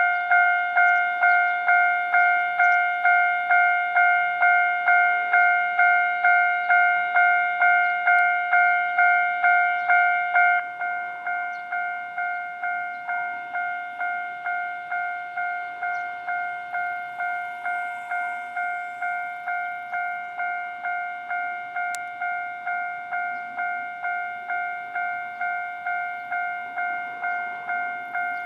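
Japanese railway level-crossing warning bell ringing in an even, repeating ding-ding, about two strikes a second. About ten seconds in it turns noticeably quieter and keeps ringing at the same pace.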